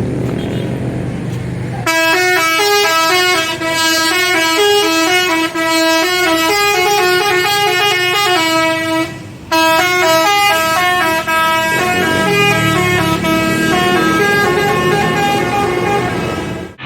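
Tour bus's Basuri telolet horn, a multi-tone musical air horn, playing a melody of quick stepping notes starting about two seconds in. It breaks off briefly about halfway, then plays on until just before the end.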